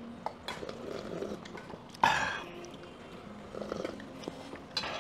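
A person drinking warm broth from a stainless steel bowl held up to the mouth, with a loud slurp about two seconds in. Light clinks of chopsticks on metal bowls.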